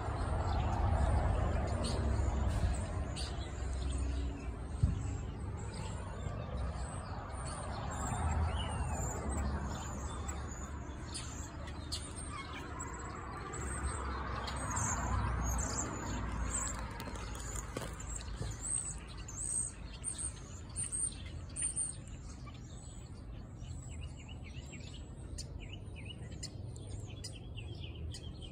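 A big flock of birds chirping overhead, a continuous scatter of many short high chirps that grows denser after the middle. Under it is a low rumble, louder in the first half, and one sharp click about five seconds in.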